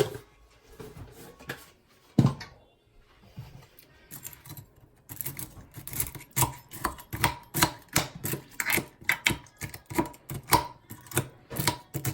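Kitchen utensils clicking and knocking against a container while seasoning is added to noodles: one sharp knock about two seconds in, then a quick, irregular run of clicks, about three or four a second.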